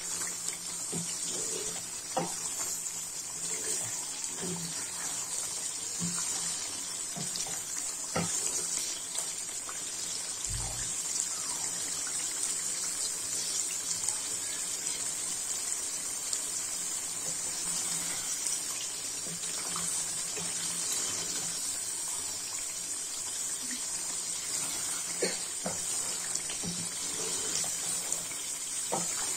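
Chicken pieces frying in separated oil in a metal handi pot, sizzling steadily, with scattered knocks and scrapes of a wooden spatula stirring against the pot. The oil coming free of the masala marks the bhuna stage, when the dish is nearly done.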